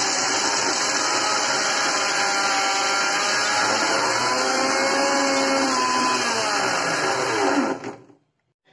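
750-watt electric mixer grinder running steadily, grinding peanuts dry in a small steel jar. About seven and a half seconds in it is switched off and winds down, its pitch falling.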